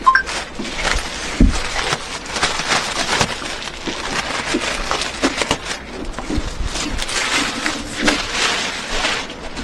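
Irregular rustling, scraping and light knocks of things being handled, with a heavier knock about a second and a half in.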